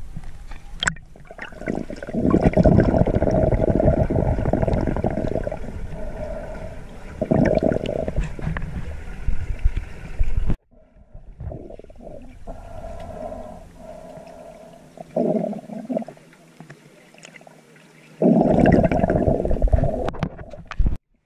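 Muffled underwater sound from a camera held below the surface: water rushing and gurgling over the microphone in loud spells, with a steady hum underneath.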